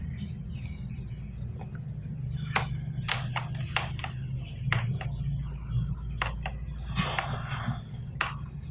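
Keys on a gaming keyboard being pressed one at a time, about a dozen separate clicks at uneven intervals, over a steady low hum. The presses switch the keyboard's backlight designs and brightness.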